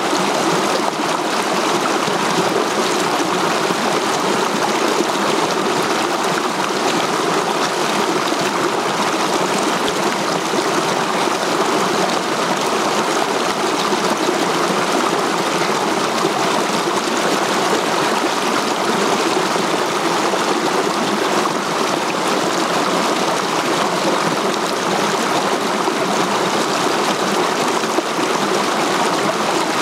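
Mountain stream flowing over boulders in small cascades: a steady, even rush of water.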